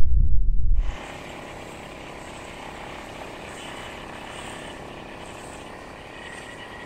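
Wind buffets the microphone with a loud low rumble for about the first second. Then a small outboard motor, most plausibly on a dinghy heading across the water, runs steadily and evenly at a much lower level.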